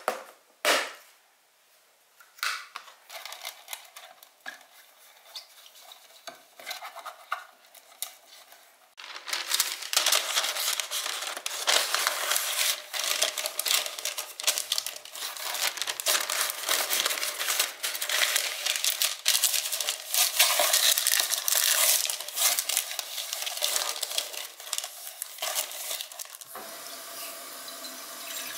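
Parchment paper crinkling and rustling as it is handled and pressed into a square metal cake tin, sparse at first and then dense and continuous from about a third of the way in, with a knock against the tin about a second in. Near the end, tap water starts running into a stainless steel saucepan.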